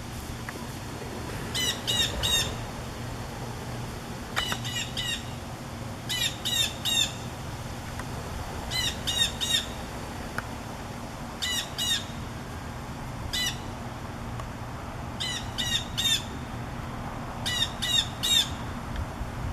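Blue jay giving harsh jay calls in quick runs of two to four, a run every couple of seconds, which the recordist takes for a warning to other birds as a storm approaches.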